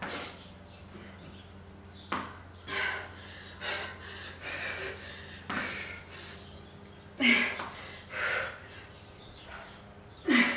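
A woman breathing hard through a squat-and-kick exercise: about ten sharp, forceful exhalations at irregular intervals. A couple carry a short voiced grunt, the loudest about seven seconds in and at the very end.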